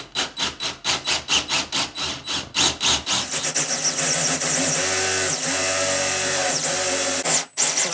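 Cordless drill boring a 35 mm concealed-hinge cup hole through an MDF cabinet door with a hinge cutter bit. It starts with a fast, even pulsing of about four beats a second, then runs steadily as the cutter bites for about four seconds. It stops with a short last burst near the end.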